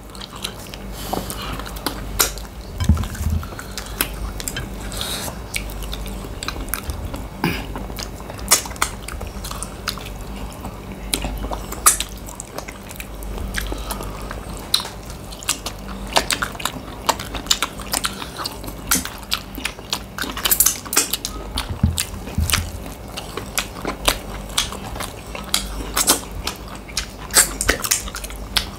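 People eating fast at close range: continuous chewing and biting with many sharp, irregular mouth clicks and smacks.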